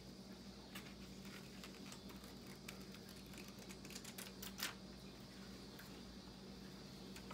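Pages of a book being flipped and turned by hand: faint crisp paper ticks and rustles, with one louder snap about four and a half seconds in, over a steady low hum.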